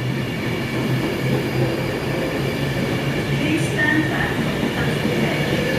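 Passenger train running past, a steady rumble with a low hum, and a brief high squeal of the wheels on the rails about four seconds in.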